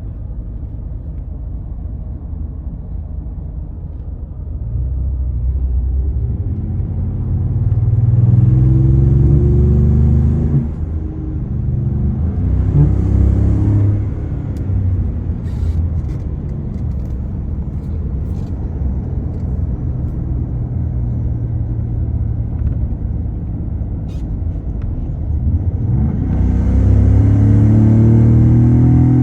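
Ford Raptor Gen2's twin-turbo 3.5-litre EcoBoost V6 pulling through three accelerations, its pitch rising with each, with a faint high hiss coming in on the hardest pulls. The truck has a humming/grinding noise while accelerating, after an earlier loud air rush and loss of power.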